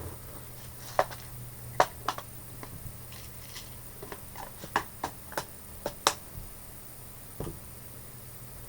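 Scattered small clicks and taps of hands handling small metal fishing tackle while getting a split ring for the jig.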